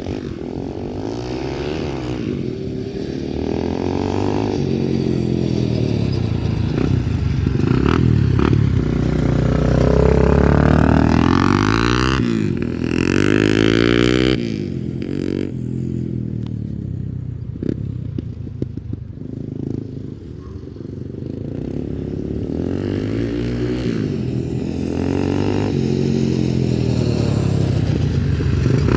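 Small off-road vehicle engine running under load, revving up and down as it rides, its pitch rising and falling repeatedly. It is loudest about ten to thirteen seconds in, with some rattling clatter.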